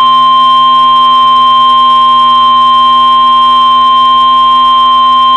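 NOAA Weather Radio warning alarm tone: one loud, steady single tone of about 1050 Hz with faint buzzy overtones. It is the attention signal that announces a warning, here a severe thunderstorm warning.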